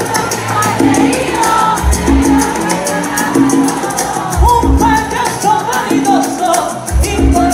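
Live salsa music on a concert sound system: a woman singing over a repeating bass line and percussion.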